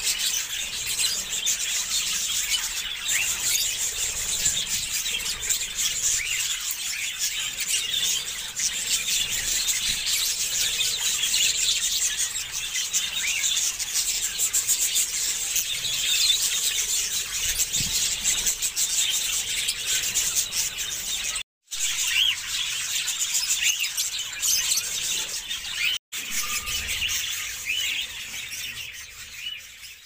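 A large flock of budgerigars chattering: a dense, high-pitched twittering that breaks off twice for a moment and fades away at the end.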